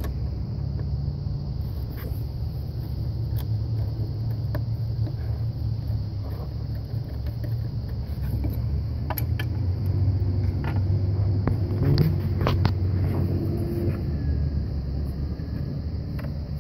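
Scattered light clicks and scrapes of a screwdriver working the screw of a worm-drive hose clamp on a coolant hose, over a steady low rumble.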